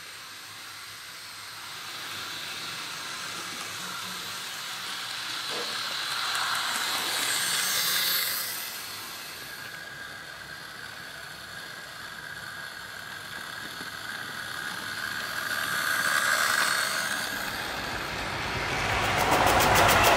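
OO gauge model pannier tank locomotive running along sectional track with its train, a steady hiss of motor and wheels that swells twice as it passes close by. Near the end a rapid clattering begins and is the loudest sound, the rattle of split-flap letters flipping.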